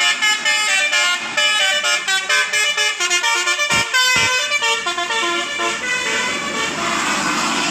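A bus's telolet Basuri musical horn playing a fast tune of stepped notes. Near the end the tune gives way to vehicle noise.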